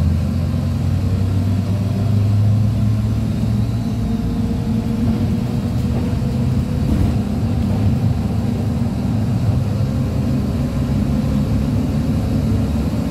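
Inside a MAZ 103.485 city bus under way, heard from near the rear door: its Mercedes-Benz diesel engine, driving through an Allison automatic gearbox, running steadily with a low hum and road noise. The engine is a little louder during the first few seconds.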